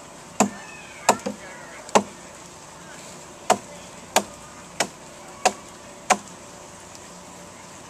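Hatchet chopping into the log being hollowed out into a dugout canoe hull: eight sharp blows, three in quick succession, a pause of about a second and a half, then five more at a steady pace about two-thirds of a second apart, stopping well before the end.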